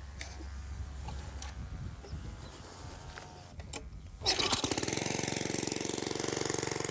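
Lawn mower's small engine starting abruptly about four seconds in and then running steadily, with a fast, even pulse. Before it, a low rumble and a few sharp clicks.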